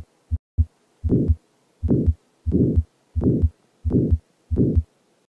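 Stethoscope recording of a heart with aortic valve sclerosis. Short heart-sound thuds for about the first second, then a systolic murmur with every beat, about one beat every 0.7 seconds.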